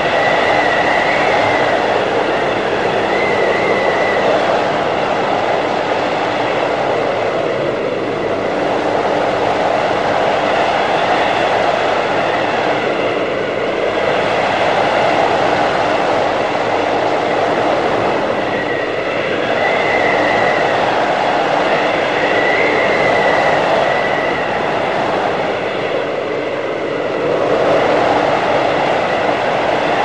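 Blizzard wind blowing hard, a continuous rushing roar that swells and eases in gusts every several seconds, with a thin high whistle over it.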